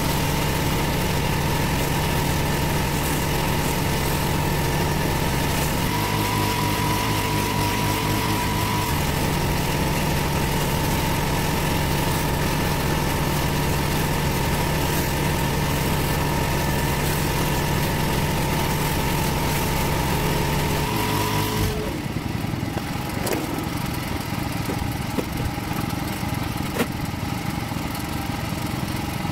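Petrol pressure-washer engine running steadily under load while the rotary surface cleaner spins over block paving; its note shifts briefly a few seconds in. About 22 seconds in the deep engine note drops away abruptly as the spraying stops, leaving a lighter running sound with a few sharp clicks.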